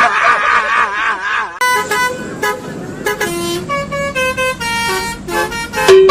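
Basuri telolet bus horn, a musical multi-tone horn. It warbles for about a second and a half, then plays a quick tune of short notes stepping up and down, and starts a longer held note near the end.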